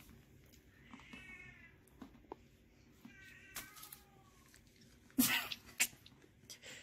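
A domestic cat meowing twice, high-pitched calls that fall in pitch, about a second in and about three seconds in. Near the end come two loud, short, sharp knocks, the first the louder.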